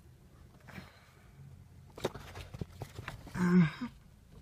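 Light clicks and knocks as a racing harness's metal end fittings are handled, then a short vocal sound a little after three seconds in.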